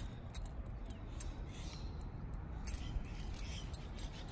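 A key fob with a metal key hanging from it being handled in the hand: small light ticks and a faint jingle over a low steady rumble.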